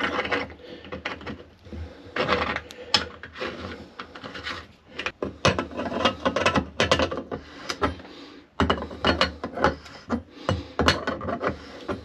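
Brass retaining nut being screwed down and tightened onto a shower mixer-tap cartridge, by hand and then with pliers: irregular metallic scrapes, clicks and rasps.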